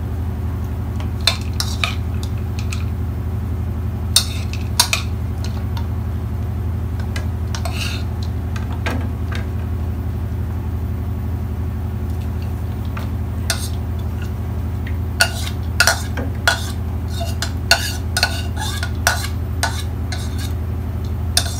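Metal spoon scraping and clinking against a white bowl as salad is spooned out onto a plate. The clinks are scattered: a few early, a quieter stretch in the middle, then a busier run of clinks near the end. A steady low hum runs underneath.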